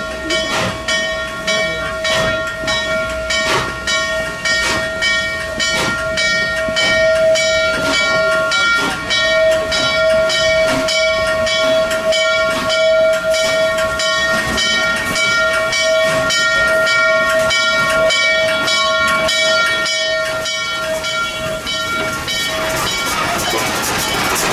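Norfolk & Western J-class 611 steam locomotive's bell ringing in a steady rhythm, about two strokes a second, over the hiss of steam as the engine rolls slowly by. Near the end the bell stops, and the close hiss and running gear of the passing locomotive take over.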